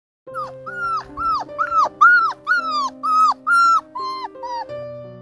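A puppy yipping: about a dozen short, high yelps in quick succession, each rising then dropping in pitch, getting weaker and stopping shortly before the end. Soft background music with long held notes plays underneath.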